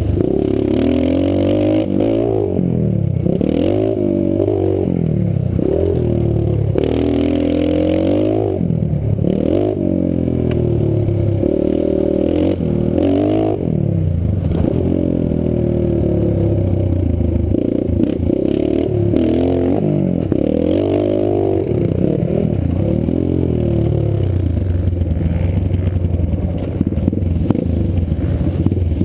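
Pit bike's small single-cylinder four-stroke engine being ridden hard around a dirt track, its pitch rising and falling over and over as the throttle is opened and closed.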